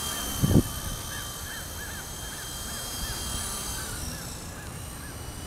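Double Horse 9100 RC helicopter's small electric motor and rotors whining steadily in flight, with a regular run of short chirps behind it and a thump about half a second in.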